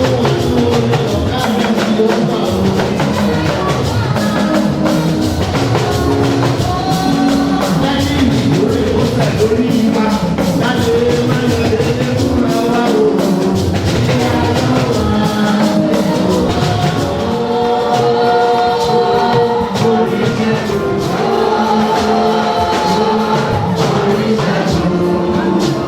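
Yoruba gospel music: a choir singing with drums and tambourine keeping a steady beat.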